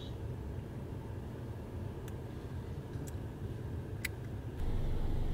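Car idling, heard from inside the cabin: a steady low rumble with three faint clicks about a second apart. It gets louder near the end.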